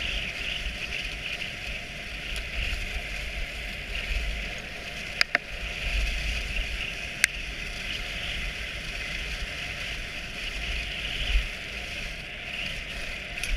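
Dog sled gliding over a packed snow trail: a steady hiss of the runners on snow over a low rumble, with two or three sharp clicks about halfway through.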